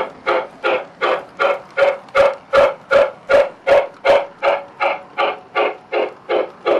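O gauge model steam locomotive's electronic sound unit chuffing steadily, about two and a half chuffs a second.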